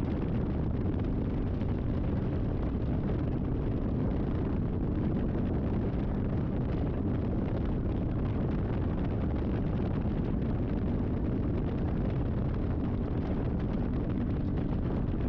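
Kawasaki Vulcan S 650 parallel-twin engine running at a steady highway cruise, with heavy wind noise buffeting the microphone in one constant low rumble.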